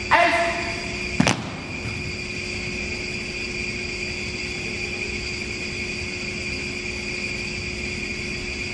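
A shouted drill command right at the start, then an armed drill team executing a facing movement: one sharp crack of boots and rifle butts striking the gym floor in unison about a second in. After that only a steady electrical hum.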